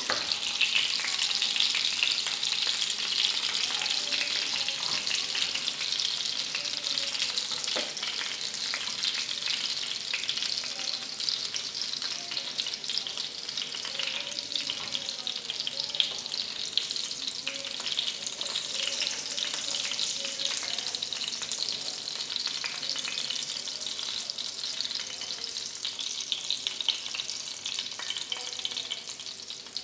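Chicken lollipops sizzling as they fry in a pan, a steady crackling hiss that slowly gets quieter, with occasional light clicks.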